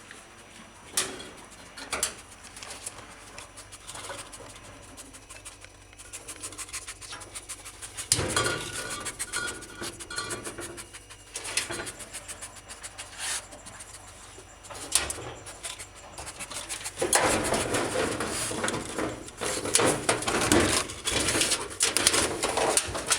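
A border terrier panting and rummaging through laundry while hunting for a mouse, with scattered knocks and clatters. The scrabbling grows loud and busy in the last several seconds.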